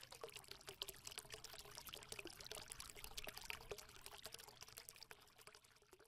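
Faint trickling, pouring sound made of a rapid, dense patter of tiny crackles, thinning out and stopping about five seconds in.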